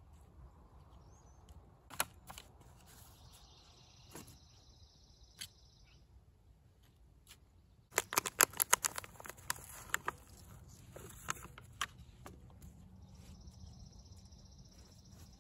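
Thin plastic nursery pot being squeezed and handled to free a chilli seedling, giving a quick run of sharp crackling clicks about eight seconds in, with a few single clicks earlier. A faint high-pitched sound comes and goes twice in the background.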